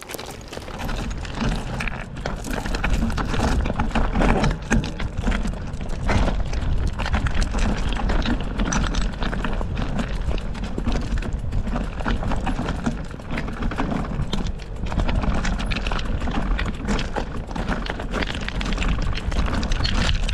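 Mountain bike rolling over a trail of loose stones: knobby tyres crunching and clattering on the rocks and the bike rattling, over a steady low rumble.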